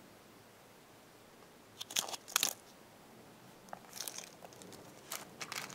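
Hands handling and squeezing a foam squishy toy: brief crunchy, crinkling rustles in three short clusters, about two, four and five seconds in.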